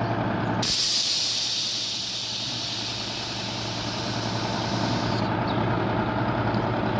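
Compressed nitrogen gas hissing at the accumulator charging valve of a concrete pump, a loud steady hiss that starts suddenly and cuts off about four and a half seconds later. An engine runs steadily underneath.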